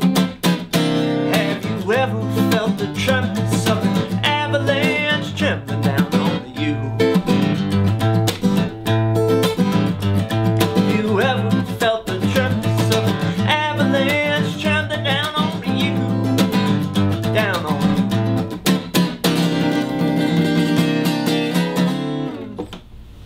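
Yamaha steel-string acoustic guitar strummed in a steady rhythm, cutting off about a second before the end.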